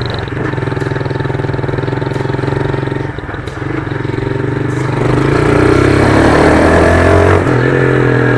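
Honda CG 150 Start motorcycle's single-cylinder four-stroke engine running through a loud aftermarket exhaust while riding. It eases off about three seconds in, then pulls harder and louder with rising pitch from about five seconds, and drops back a little past seven seconds.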